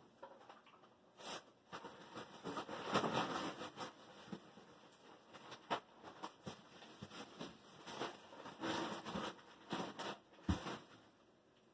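Small kitchen handling noises: scattered clicks, taps and rustles, with a heavier knock about ten and a half seconds in.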